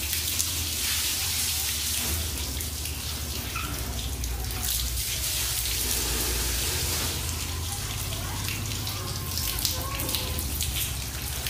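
Steady rush of water from an open garden hose, run without a nozzle, pouring onto a ceramic-coated car hood and running off the paint in sheets.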